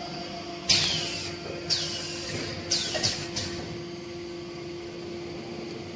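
Multiple-dosing static mixing machine humming steadily, with five short, sharp hisses that fall in pitch, one each about a second then three in quick succession near the middle.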